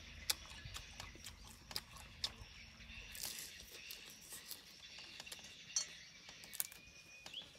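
Quiet eating sounds: chewing with scattered sharp wet clicks and smacks from the mouth and fingers picking at grilled fish and lettuce.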